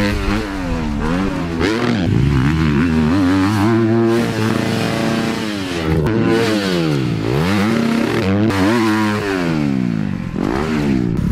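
Motocross bike engines revving hard on a supercross track, the pitch climbing and dropping again and again as the throttle is opened and chopped over the jumps.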